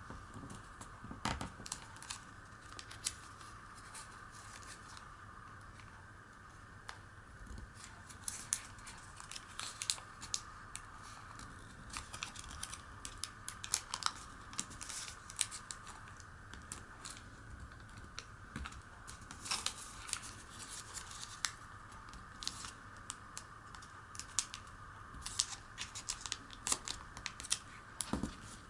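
Origami paper being folded and pressed by hand: irregular crisp crinkles, rustles and short scrapes as fingers run along the creases, over a steady faint background noise.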